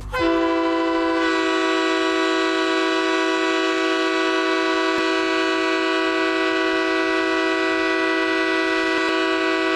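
Hockey goal horn blowing one long, unbroken blast of several tones at once. It comes on suddenly, settles in pitch within a fraction of a second, shifts slightly in tone a little over a second in, then holds steady.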